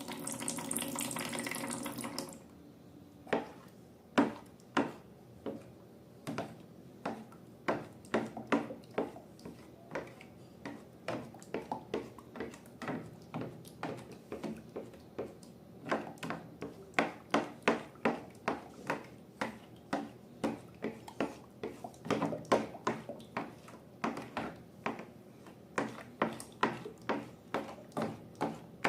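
Liquid pouring out for about two seconds, then slime being stirred and squished, with many short, irregular sticky clicks and pops, several a second.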